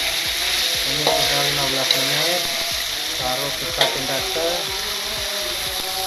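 Beef and spice paste sizzling as it is stir-fried in a wok, with a metal spatula scraping through it and knocking sharply against the pan a few times.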